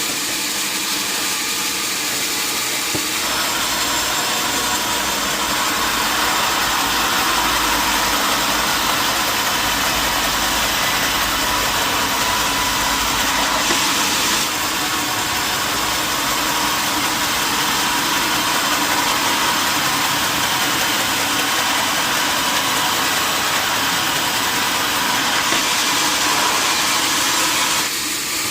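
Sawmill saw machinery running steadily with a dense mechanical noise. The noise grows fuller about three seconds in and falls back just before the end.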